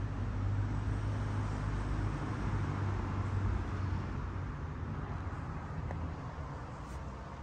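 Low vehicle rumble, strongest in the first few seconds and slowly fading away, heard from inside a truck's cab.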